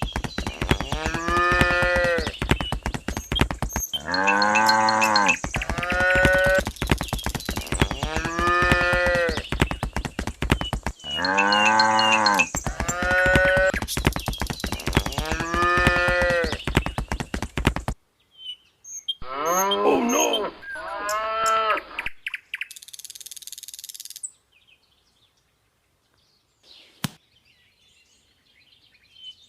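Cattle mooing: a string of about nine long, drawn-out moos one after another, stopping about three-quarters of the way through.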